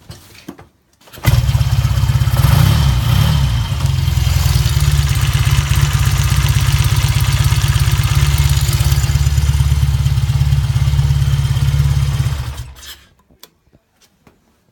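Triumph 5TA 490 cc parallel-twin engine starting about a second in, with a brief rise in revs, then running steadily for about ten seconds before it stops near the end.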